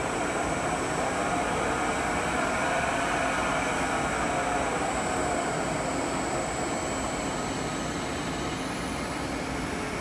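5-litre lab vacuum emulsifying mixer running: a steady mechanical hum from its homogenizer and agitator motors as the blades turn inside the stainless vessel.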